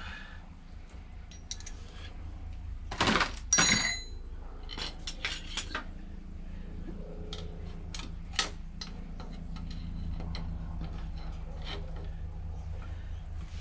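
Metal hand tools and engine parts clinking and clattering as they are handled and set down: a loud pair of clinks about three seconds in, the second ringing briefly, then scattered lighter clicks, over a steady low hum.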